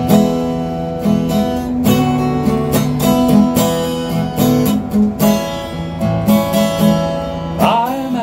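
Acoustic guitar strumming a steady rhythm with a piano accordion holding chords underneath, the instrumental opening of a slow country song. A man's singing voice comes in near the end.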